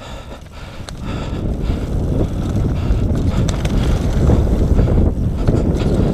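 Wind rushing over the camera microphone with the rumble of a Nukeproof Mega 275 mountain bike's tyres on a dirt trail, plus scattered clicks and rattles from the bike. It gets louder about a second in as the bike picks up speed.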